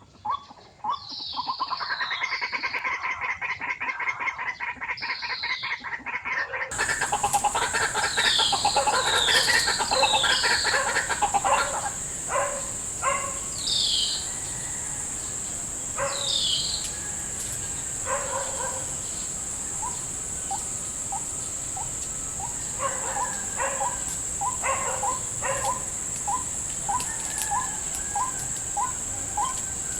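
Loud harsh calls of white-breasted waterhens, a dense croaking chorus for the first dozen seconds that thins into a run of short, evenly repeated notes, about three every two seconds. A steady high-pitched whine sets in abruptly about a quarter of the way through.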